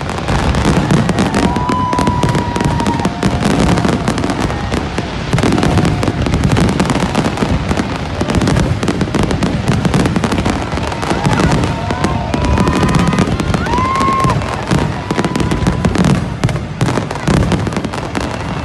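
A dense, continuous fireworks barrage: many shells bursting at once in rapid crackling and banging, with a deep low rumble under it. A few brief whistling tones sound over it, about a second in and again near the three-quarter mark.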